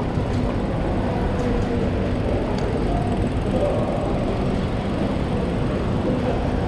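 Steady rumble of traffic on a wet city street, with a faint motor whine that rises and falls about halfway through.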